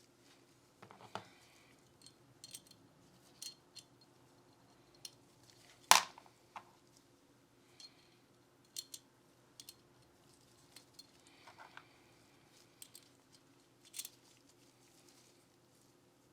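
Small metal parts of a Glock 19 pistol being handled during cleaning and trigger work: scattered light clicks and taps, with one sharp, louder click about six seconds in.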